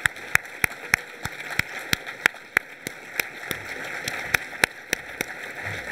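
Audience applauding. One person's hand claps close to the microphone stand out, about three a second, and stop near the end.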